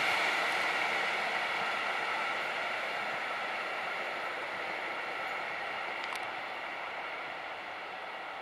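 Train running noise on the rails, a steady hiss that fades away slowly, with a faint click about six seconds in.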